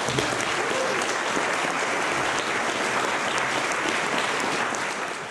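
Applause, many hands clapping at a steady level, fading out near the end.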